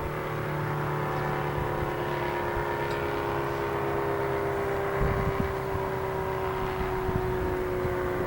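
ACA Cyclone 125 tornado siren sounding a steady tone with overtones, its pitch drifting slightly lower. Wind buffets the microphone about five seconds in.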